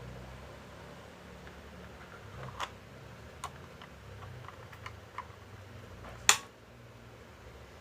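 A few light clicks and taps at uneven intervals, with one sharp, louder click about six seconds in.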